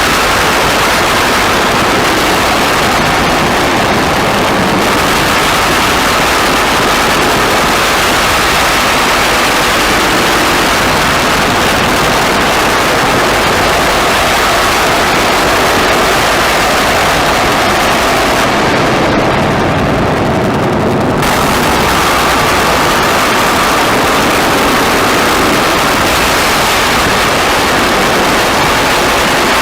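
Experimental noise music: a dense, loud, unchanging wall of hissing noise with faint held tones inside it. The top end thins out for a few seconds about two-thirds of the way through.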